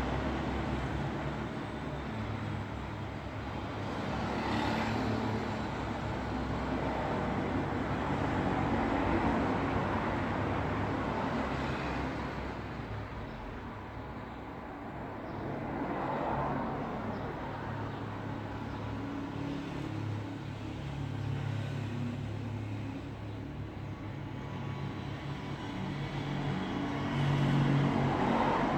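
Road traffic: a continuous rumble of vehicles with cars passing one after another, each swelling and fading over a few seconds, the loudest pass near the end.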